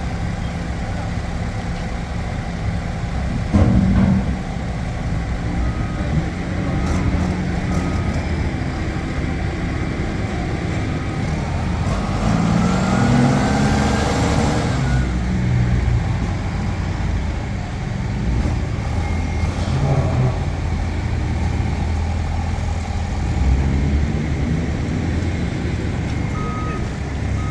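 A heavy vehicle engine runs steadily with a low drone. There is a sharp knock about three and a half seconds in, a whine that rises and falls near the middle, and short high beeps here and there.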